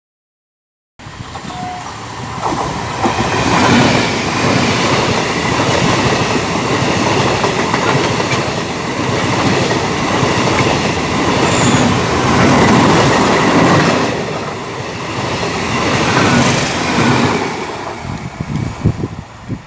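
Electric multiple-unit suburban train passing close by at speed, a loud continuous rumble and clatter of wheels on track that begins abruptly about a second in. Near the end, separate clacks of wheels crossing rail joints stand out before the sound cuts off.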